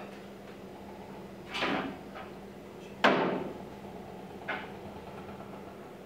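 Wooden cup blanks being taken off an overhead rack and set down on a wooden platform. There is a short scraping knock about a second and a half in, a sharp wood-on-wood knock about three seconds in, and a lighter knock about four and a half seconds in, over a steady low hum.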